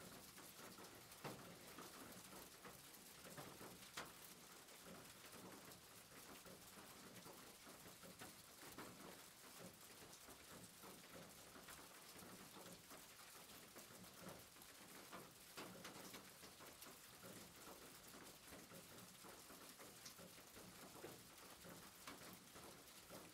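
Near silence: a faint steady hiss with a few soft clicks.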